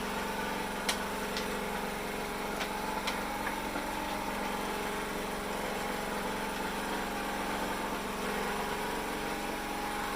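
A small engine running steadily at an even idle, with a few sharp clicks in the first three seconds.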